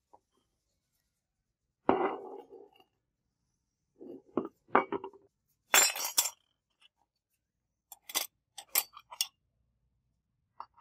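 Small die-cast metal model-car parts clinking and clattering as they are handled, pulled apart and set down on a wooden tabletop. The sound comes in several short separate bursts.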